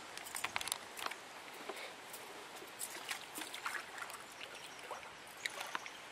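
Feet wading into shallow lake water: light splashing and sloshing, with scattered small clicks and knocks.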